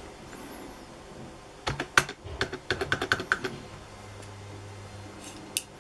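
Typing on a PS/2 PC keyboard: a quick burst of about a dozen keystrokes, then a single keystroke near the end.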